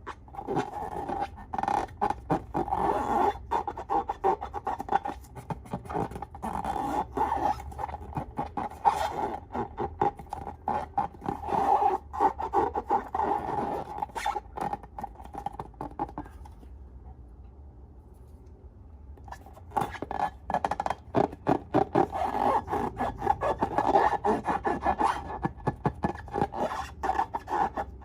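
Hands working slime and balloons at close range: dense crackling, clicking and rubbing in two bouts, with a lull of a few seconds about two-thirds of the way through.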